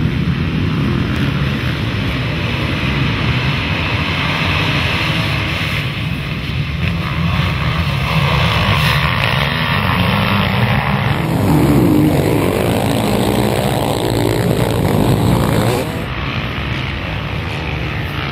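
A pack of motocross dirt bikes racing, their engines revving hard with pitch rising and falling as riders work the throttle, a little quieter near the end.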